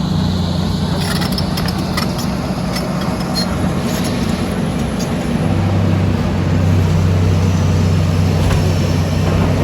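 A large engine running steadily, getting a little louder about halfway through, with scattered short knocks and clicks over it.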